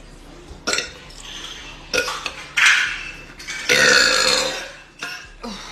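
A woman burping several times, brought on by a very carbonated soda: two short burps, then a louder one, then a long burp about four seconds in, the loudest of all.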